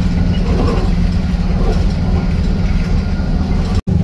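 Steady low engine drone of a bus heard from on board, with road noise. It breaks off abruptly for an instant near the end.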